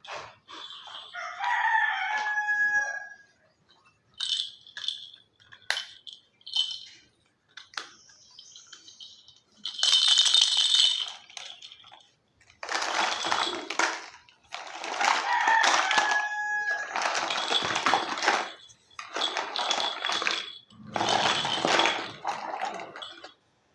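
A rooster crowing twice, about a second in and again midway. Between the crows come sharp clicks and stretches of rustling from small plastic toy pieces being handled.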